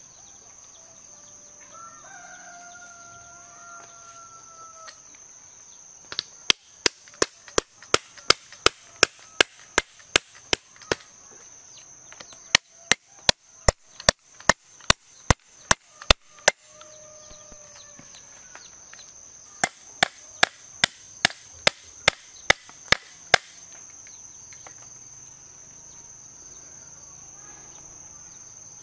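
Three runs of steady chopping, sharp blows about two or three a second, over a steady high insect drone. A rooster crows early on and again in the middle.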